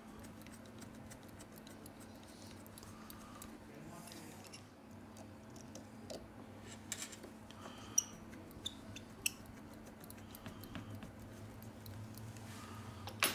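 Precision screwdriver working tiny screws in a Huawei P10's bottom edge: soft scattered clicks of metal tip on screw and frame, a few sharper ticks in the middle and one louder click near the end, over a steady low hum.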